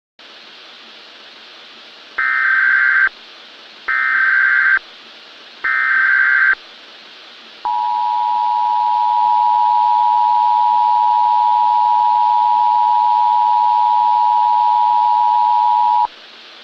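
Emergency Alert System tones over a steady hiss of static. Three short bursts of SAME header data come about 2 s in, each about a second long, then the two-tone EAS attention signal (853 and 960 Hz together) holds for about eight seconds and cuts off abruptly. Together they open an alert broadcast.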